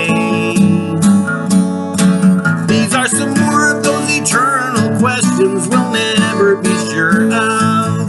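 Acoustic guitar strummed steadily, with a man's voice singing or vocalising along at times.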